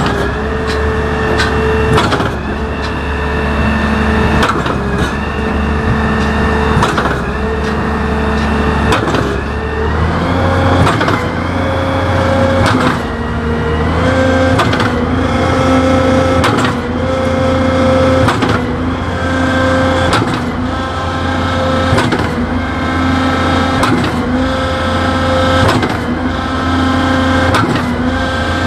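S.H.I concrete pump running: a steady engine drone with a sharp clunk every second or so as the pumping cylinders change stroke. The engine pitch steps up about ten seconds in and then holds.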